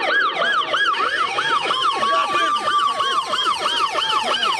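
Police sirens: a fast yelp rising and falling about three times a second, over a slower wail that climbs and then falls away, as for a Code 3 emergency response.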